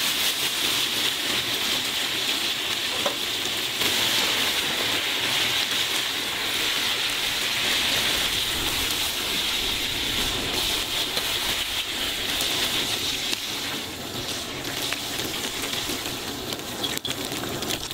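Floured crab pieces deep-frying in hot oil in a wok, a steady dense sizzle.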